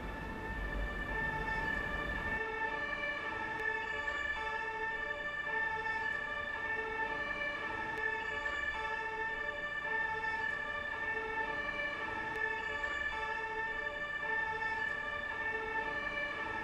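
Two-tone emergency vehicle siren, alternating steadily between a higher and a lower note. The outdoor background noise drops out about two seconds in.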